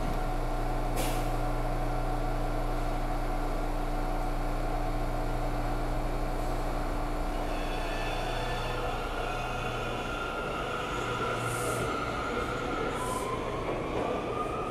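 New York City subway train in an underground station: a steady low hum, with several high tones joining about halfway through and a rising whine near the end, broken by a couple of short hisses.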